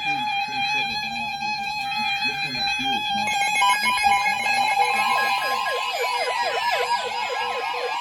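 Several weather radios going off together for an incoming severe thunderstorm warning. First come the buzzy digital header bursts over a steady tone. About three seconds in, the alert tones start, piling up on each other. About five seconds in, one radio adds a fast up-and-down siren-like wail.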